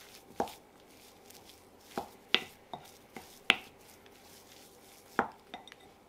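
Wooden spoon knocking against a glass mixing bowl while mashed potato is stirred: about seven sharp clacks at irregular intervals.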